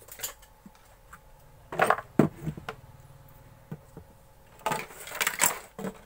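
Clatter and knocks of mixer grinder parts being handled on a workbench while the plastic body is refitted: a few scattered sharp knocks, bunched about two seconds in and again about five seconds in.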